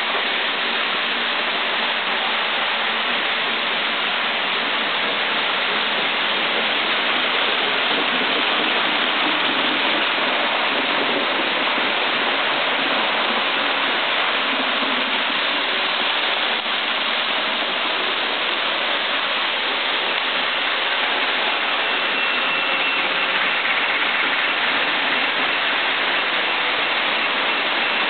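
N scale model trains running on the layout's track: a steady rushing whir of small wheels on rail, with a faint thin high whine joining about two-thirds of the way through.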